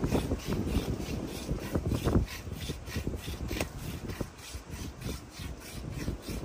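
Rhythmic scraping in quick, even strokes.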